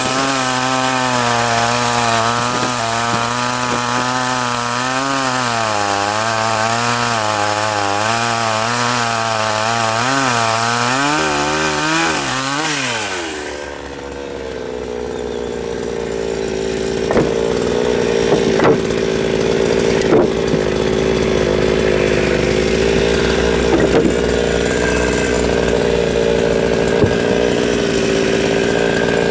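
A 52cc two-stroke Chinese chainsaw on an 18 inch bar cutting through willow logs at high revs, the engine pitch wavering up and down as it works under load. About 13 seconds in, the revs fall sharply and the saw keeps running more steadily at lower speed, with a few sharp knocks.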